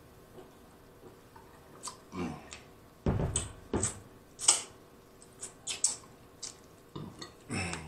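Close-up wet mouth sounds of eating: lip smacks and sucking of sauce-covered fingers, a dozen or so short sharp smacks starting about two seconds in, the sharpest about halfway through, with a couple of low hums among them.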